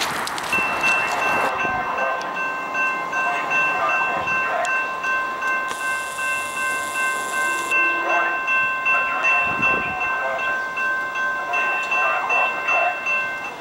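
Railroad grade-crossing bells ringing in a steady, even rhythm as the crossing signals are activated for an approaching train.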